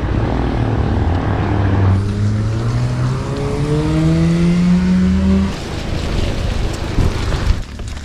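A motor vehicle's engine running and accelerating, its pitch rising steadily for a few seconds before it drops away, over a steady rushing noise.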